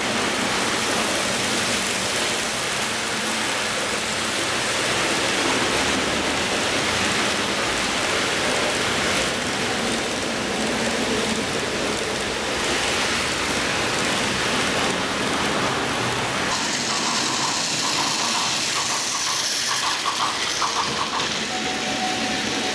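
N-gauge model trains running on the layout's track: a steady rushing rumble of wheels on rail. About three-quarters through the noise changes and a short run of quick, light ticks is heard.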